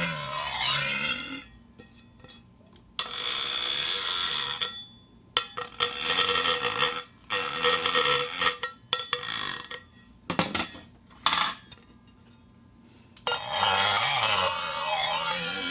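Iron plate ringing with metallic tones in several bursts of a second or more, with short sharp knocks between and quiet gaps. Near the start and the end its pitches waver and warble in a squealing ring.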